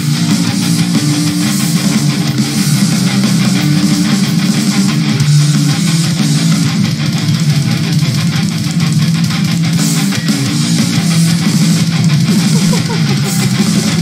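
Instrumental metal band playing with no vocals: distorted electric guitar, bass guitar and drums.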